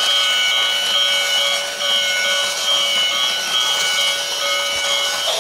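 Battery-powered toy steam train set running, giving off a steady rasping noise with several held electronic tones that pulse rhythmically.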